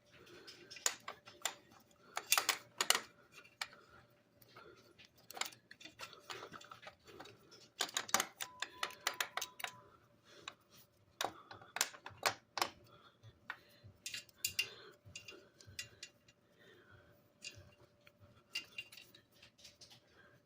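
Irregular clicks, taps and light rattles of hand tools and small metal parts being handled, some coming in quick runs.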